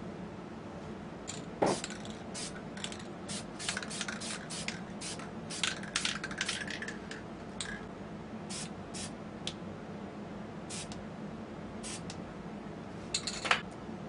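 Aerosol spray-paint can sprayed in a rapid series of short hissing bursts, a few of them a little longer, thinning out in the second half. There is a sharp knock about a second and a half in, over a steady low hum.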